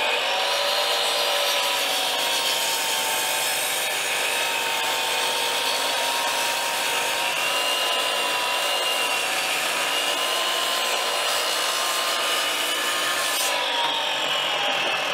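DeWalt sliding compound miter saw running and slowly cutting through a 3x6 timber knee brace, with a steady motor whine under the noise of the blade in the wood. The cutting noise stops about two seconds before the end, and the motor starts to wind down.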